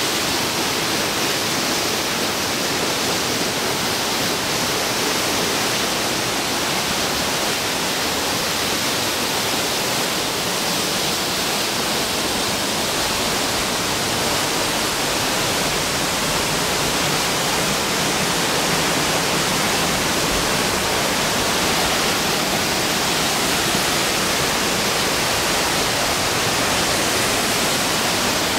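Flume Brook cascading over rocks in small falls: a steady, even rush of water.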